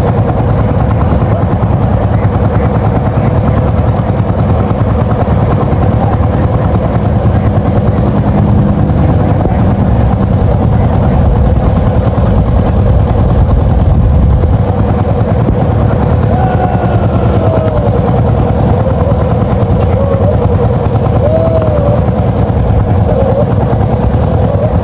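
An engine running steadily and loudly, with a constant whine over its low rumble. A few short rising and falling calls sound over it in the second half.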